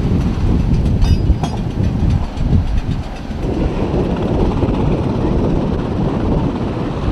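Steady low rumble of wind and open-deck noise buffeting the microphone, with two short knocks about a second in.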